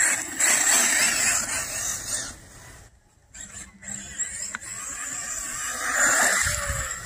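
HPI Vorza 1/8-scale brushless RC buggy running on 6S: a high electric motor and drivetrain whine with tyre noise on dirt. It comes in two runs, broken by a brief near-silent gap about three seconds in.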